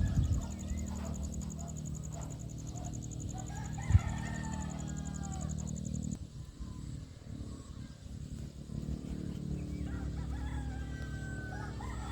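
Birds calling, with long, drawn-out calls about four seconds in and again near the end, over a steady low rumble. A sharp knock sounds about four seconds in.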